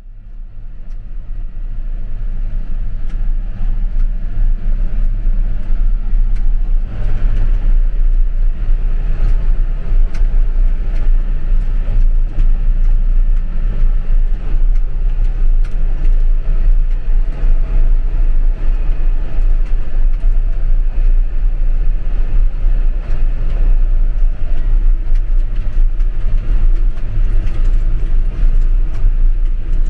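Heavy diesel farm machinery running steadily: a deep, even engine drone with light rattles and clicks over it. It fades in from silence at the start.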